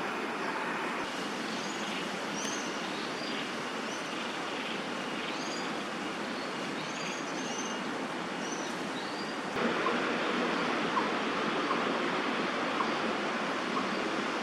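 Outdoor city-park ambience: a steady rush of distant traffic with small birds giving short, high chirps from about two to nine seconds in. Near two-thirds through, the background suddenly becomes louder.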